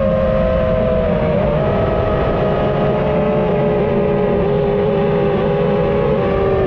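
Small FPV racing drone's electric motors and propellers whining in flight, several close pitches that sag slowly and pick up again near the end as the throttle changes.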